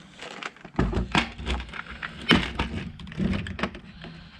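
Irregular clicks and knocks of hands working the wire-feed drive mechanism of a Primeweld MIG welder while swapping its drive roller.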